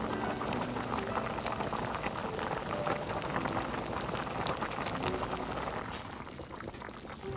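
Pork belly and vegetables simmering in their own juices in an open pot: the liquid bubbles and pops in a dense, steady crackle, which thins out and quietens about six seconds in.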